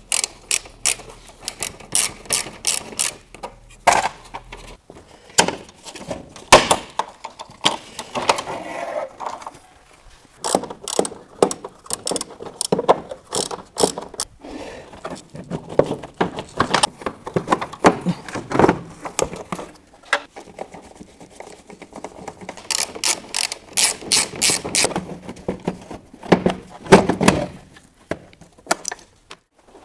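Hand-tool work on a car headlight assembly: runs of rapid clicking and scattered sharp knocks of plastic and metal parts.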